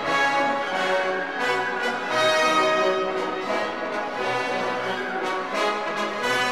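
Orchestral background music led by brass, with sustained held notes.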